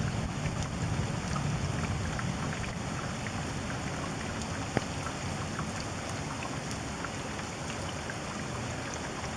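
Steady rain during a night thunderstorm, with many small drop ticks over a low rumble of wind on the microphone, and one sharper tick about five seconds in.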